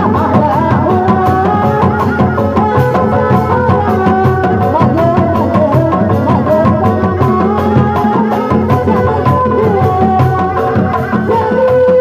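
Sundanese traditional street procession music: dog-dog drums and a large barrel drum carried on a pole keep a steady beat under a held, stepping melody line.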